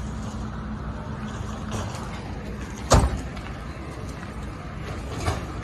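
A vehicle door slamming shut about three seconds in, over the low steady hum of an idling engine, with a lighter knock near the end.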